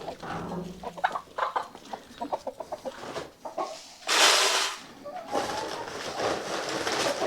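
Chickens clucking in short, irregular calls, with a loud rushing noise about four seconds in and another lasting about two seconds from just after five seconds.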